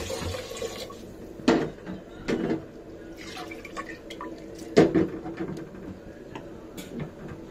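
Pressure cooker being handled on a gas stove: scattered metal clicks and two louder knocks, about a second and a half in and again near five seconds, with water dripping.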